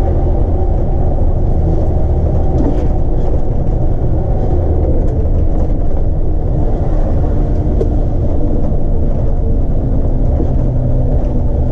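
Mercedes-Benz O405NÜ bus engine running with a steady low rumble.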